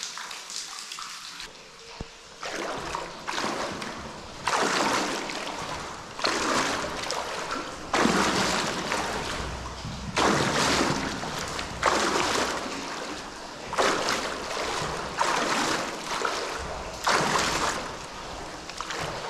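Wading steps through water in rubber waders: a splashing slosh with each stride, about one every one and a half to two seconds.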